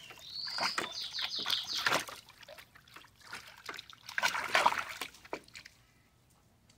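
Dog splashing and pawing at the water in a small dog pool, digging for a bone on the bottom, in bursts during the first two seconds and again around four to five seconds in.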